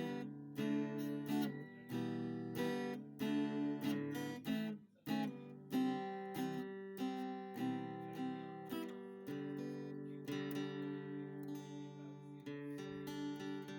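Background music of strummed acoustic guitar, chords struck in a steady rhythm and ringing.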